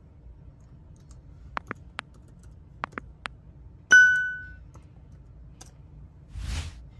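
A few light clicks in two small groups, then a single bright ding, a computer alert chime, that rings out for about half a second. A short soft rush of noise near the end.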